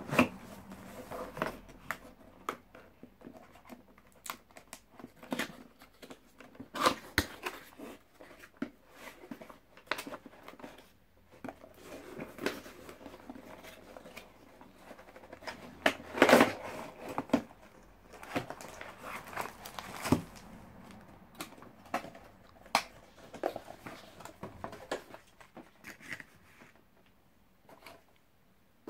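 Cardboard packaging being opened and handled, with plastic wrapping crinkling: irregular rustles, scrapes and clicks, loudest in a cluster about halfway through.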